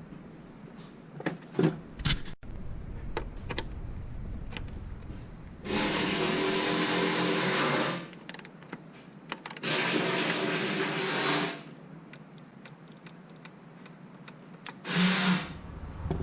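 A small electric motor, of the kind in a power tool, runs twice for about two seconds at a steady pitch, with a shorter burst near the end and light tool clicks in between.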